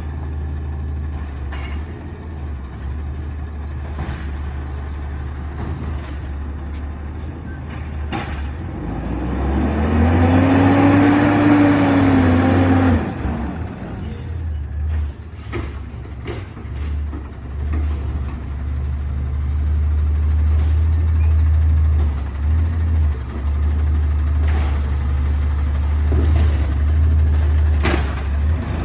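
Recycling garbage truck's engine running steadily. About ten seconds in it revs up for roughly three seconds, its pitch rising and then falling back, and a short high rattle follows.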